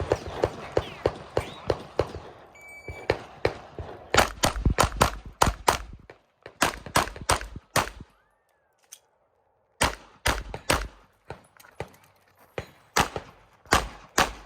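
Shot timer beeps once about two and a half seconds in, then a 9 mm Glock 17 pistol fires rapid strings of shots in quick pairs, with a break of about two seconds midway before the shooting resumes. Other gunfire fills the first two seconds before the beep.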